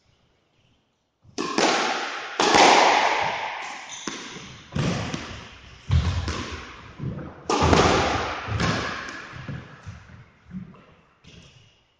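Squash rally: rackets striking the ball and the ball smacking off the court walls, about one sharp hit a second, each ringing out in a long echo in the enclosed court. It starts about a second in.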